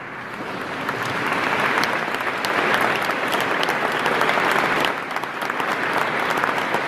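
Audience applauding, breaking out suddenly and building over the first two seconds.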